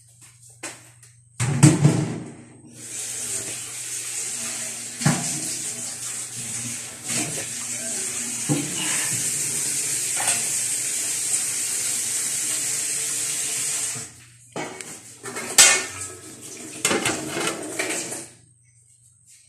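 Utensil knocking against a stainless steel cooking pot of mung bean soup over a steady hiss, then a clattering stretch with one sharp metal hit as the pot is handled near the end.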